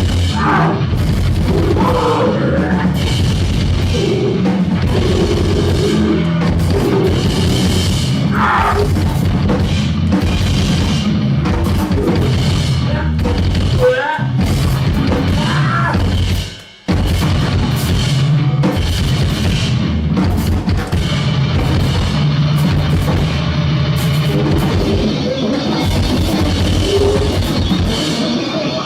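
Live noisecore band playing at full volume: dense, fast drumming under a wall of distorted noise. It drops out for a split second a little past halfway, then slams back in.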